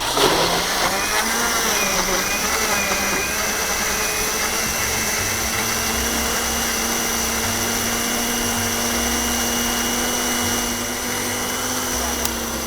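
Electric blender running, blending strawberries, yogurt and whipped cream into a smoothie. It starts suddenly, its pitch wavers for the first couple of seconds as the mix settles, then it runs steadily until it is switched off at the end.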